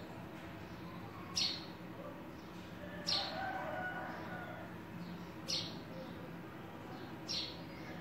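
Cockatiel giving short, sharp chirps, four in all, spaced about two seconds apart.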